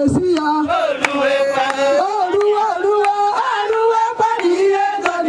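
A group of women singing a song together in unison, long held notes that slide between pitches, over a steady percussive beat.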